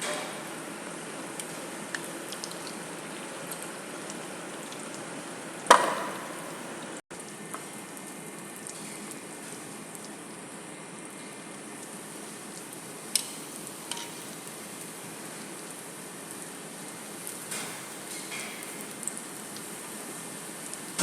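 Mandazi dough deep-frying in hot oil: a steady sizzle, with a few sharp knocks, the loudest about six seconds in.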